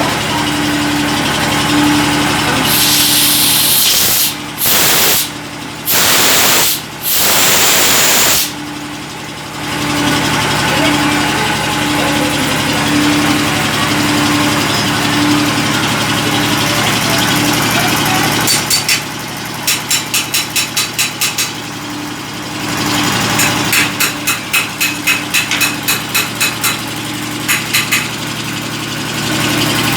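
Automatic mawa kettle and its steam boiler running with a steady machine hum. Several loud bursts of steam hiss come in the first third. Later there are two runs of rapid ticking, about five a second.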